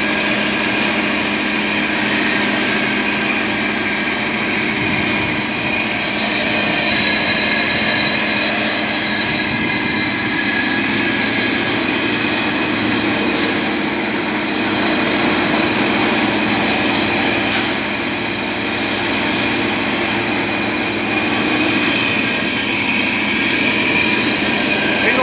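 A 40 barg high-pressure piston air compressor package, with its electric motor, reciprocating pump and cooler fan, running steadily on a test run. It makes a loud, even mechanical noise, with two faint clicks about halfway through.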